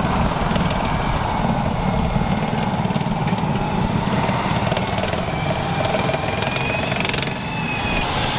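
M1 Abrams tank on the move: its gas-turbine engine runs with a high whine over a heavy, steady rumble from the drive and tracks. The whine rises slightly in pitch toward the end, then breaks off.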